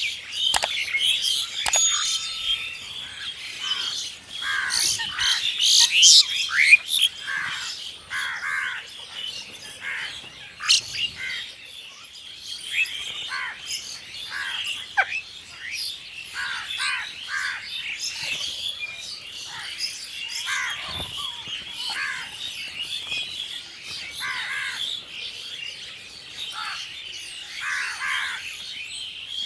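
A flock of crows calling, with many short harsh caws one after another throughout, over a steady high chirping of birds.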